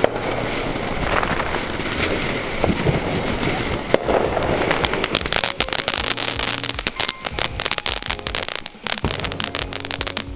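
Fireworks going off: a couple of sharp bangs over a rumbling haze, then from about halfway a dense run of crackling pops.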